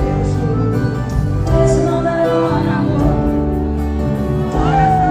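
Loud music with singing, sustained notes over a steady accompaniment, with a long sliding note near the end.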